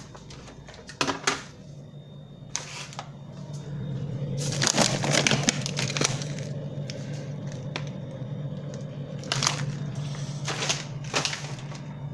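Plastic bags of frozen berries being handled, crinkling and crackling in several bursts, most of all about five seconds in, over a steady low hum.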